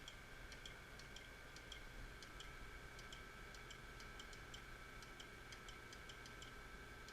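Marunaka MG-500 knife grinder with its lapping head running: a faint steady whine under a light, irregular ticking of paired clicks, a few a second, as the lapping head is wound down in very fine steps toward the blade.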